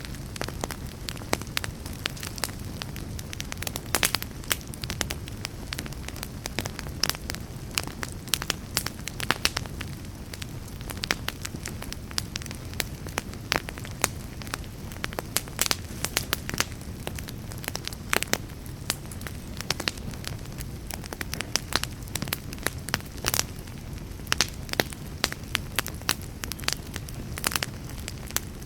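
Wood fire burning in a fireplace: a steady low rumble of flames with many sharp, irregular crackles and pops, several a second.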